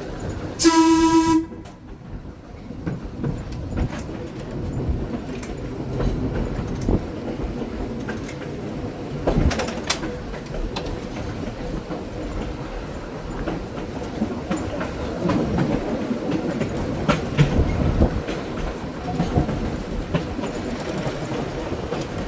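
Springfield Electric Railway No. 16, a 1926 Wason-built trolley car, running along the track: one short horn blast about half a second in, then the steady rumble and clatter of its wheels over the rails.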